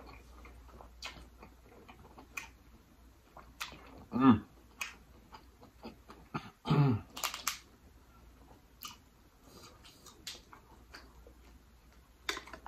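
Close-miked eating sounds from a lobster tail: wet chewing, lip smacks and scattered sharp clicks of shell and fingers being handled. Two short loud hums of the voice come about four and seven seconds in.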